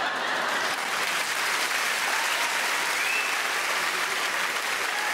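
Large theatre audience applauding steadily as the stage blacks out.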